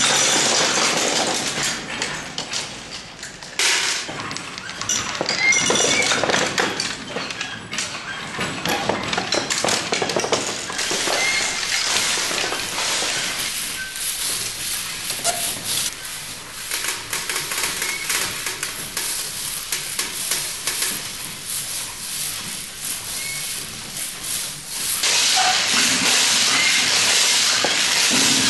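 Wooden kinetic sculpture running through its loop. It makes a busy patter of small clicks, taps and knocks, starting with small pellets pattering onto a stretched latex sheet. From about 25 seconds in, a steady hiss joins the clatter.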